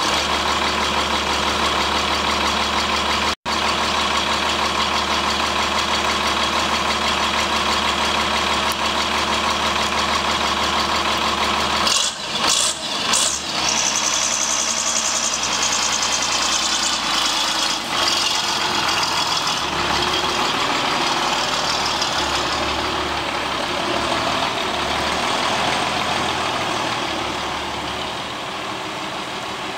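Diesel engine of a Taishan wheeled farm tractor running steadily, cutting out for an instant a few seconds in. A few sharp knocks come about twelve seconds in, then the engine note wavers and slowly fades near the end as the tractor drives off.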